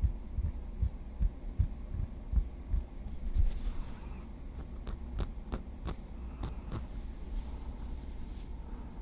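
A small wooden stick tapping lightly in an irregular run of soft taps, several a second. They are dull low thuds at first and crisper, sharper clicks from about halfway, over a steady low hum.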